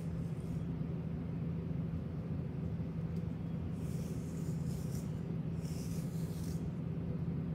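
A steady low hum, with soft rustling of hands parting a Bernese mountain dog's thick fur, twice, about four and six seconds in.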